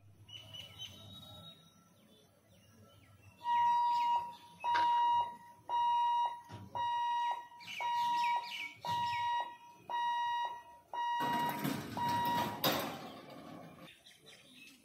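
Level-crossing warning hooter beeping on one steady pitch, about nine beeps at roughly one a second, signalling that the gate barriers are closing for an approaching train. A loud rush of noise rises over the last few beeps, and birds chirp faintly throughout.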